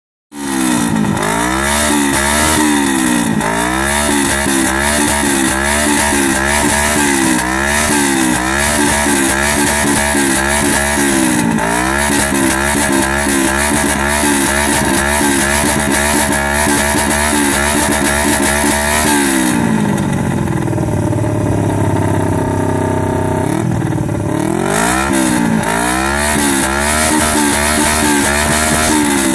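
Suzuki GSX250E 'Zari' parallel-twin engine with a silencer fitted in its exhaust, blipped in a rhythmic throttle call: quick, repeated rises and falls in revs. About two-thirds through it settles to idle for a few seconds, then the rhythmic revving starts again.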